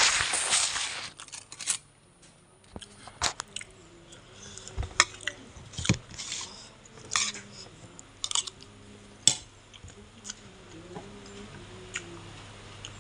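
A person eating rice and stingray curry by hand close to the microphone: scattered chewing, crunching and sharp clicks every second or so. A loud rustle fills the first second.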